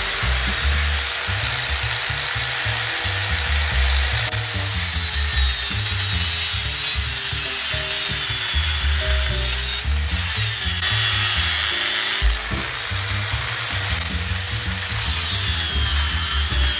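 Electric angle grinder running with its disc cutting through a sheet of PVC plastic: a steady motor whine over a grinding hiss, the whine dipping a little now and then as the disc bites.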